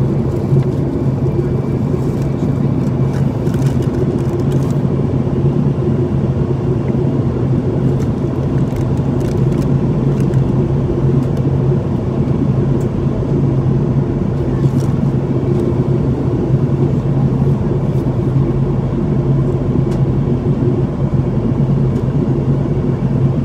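Steady in-flight cabin drone of a Boeing 737-800: engine and airflow noise heard from inside the cabin, with a constant low hum.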